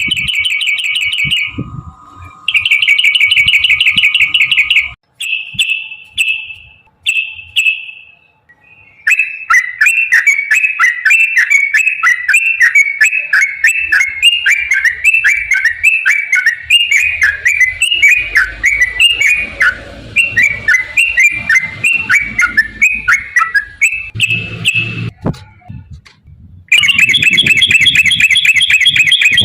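Yellow-vented bulbuls (trucukan) singing in rapid bubbling trills and chatter. Several short fast trills open it. A long unbroken run of quick, downward-slurred notes follows from about nine seconds in, and a dense trill returns near the end.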